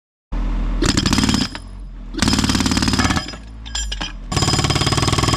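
Jackhammer breaking up asphalt in three bursts of rapid hammering, with a steady lower running sound in the pauses between them. It starts abruptly, about a third of a second in.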